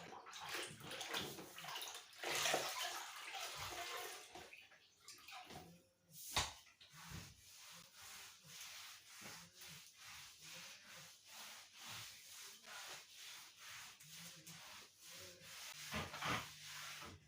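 Wet scrubbing on a bathroom floor, a swishing that settles into regular strokes somewhat under two a second. There is one sharp knock about six seconds in.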